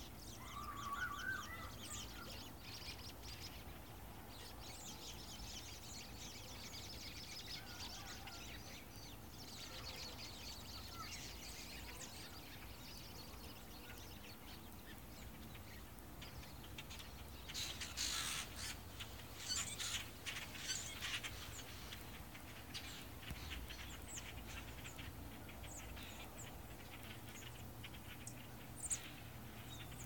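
A large flock of birds calling as it flies over: a dense, steady chatter of many short overlapping calls, with a louder burst of calls about eighteen to twenty-one seconds in.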